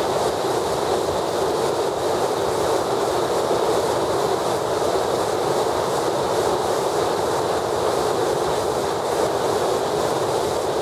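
Water spilling over a low-head dam and churning in the pool below: a steady, unbroken rush of white water.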